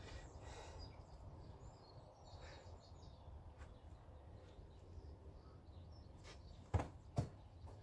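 Quiet outdoor ambience with faint birds chirping, then two short sharp knocks about half a second apart near the end.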